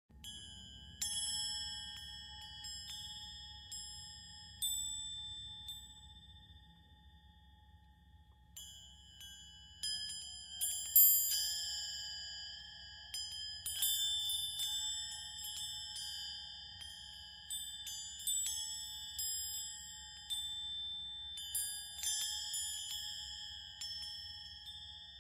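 High bell-like chime notes, struck singly and in small clusters at irregular intervals, each ringing out and fading. There is a pause at about 6 to 8 seconds, and the notes come more often after that, over a faint steady hum.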